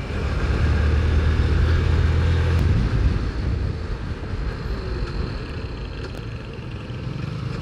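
Motorcycle engine running while riding, with wind rushing over the microphone. The low engine drone is strongest for the first three seconds, then eases off.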